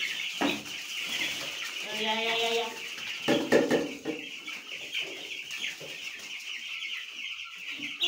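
A crowd of young chicks peeping continuously, a dense high-pitched chorus of chirps. A short low voice sound comes about two seconds in and a thump a little after three seconds.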